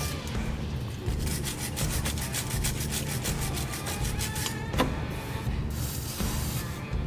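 Wire brush scrubbing rusty steel on a car's front steering knuckle and hub in rapid back-and-forth strokes, stopping about two-thirds of the way through, over background music.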